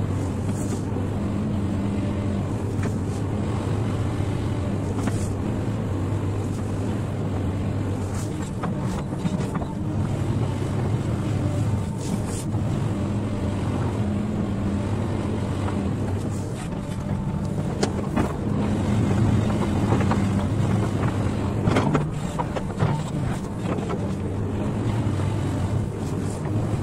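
XCMG hydraulic excavator's diesel engine running with a steady low drone while the machine swings and lifts its boom. It gets louder, with scattered knocks and clatters, around two-thirds of the way through.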